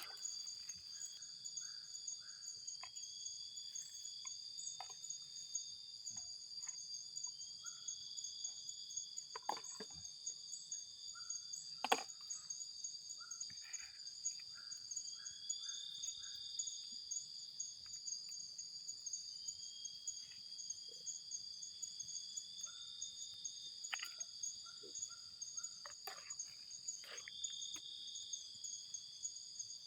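A steady, high-pitched chorus of night insects, crickets, trilling without a break. Short chirping calls and scattered small sharp clicks and taps come through it, with one louder click about twelve seconds in.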